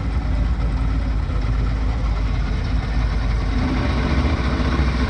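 75 hp outboard motor running steadily, heard from aboard the open boat under way, together with wind and water noise. Its steady engine note comes up a little stronger after about three and a half seconds.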